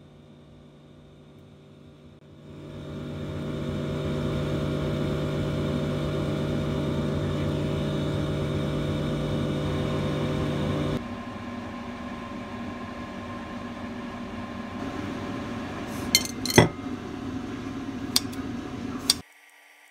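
A steady kitchen hum that gets louder after a couple of seconds and drops back at about eleven seconds. Near the end, a metal knife and fork clink against a ceramic plate about five times while cooked squid is cut.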